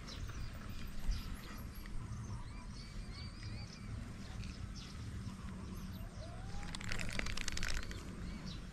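Small birds chirping and calling repeatedly over an open rice paddy, with short rising and falling notes scattered throughout. About seven seconds in there is a brief burst of rapid clicking lasting roughly a second.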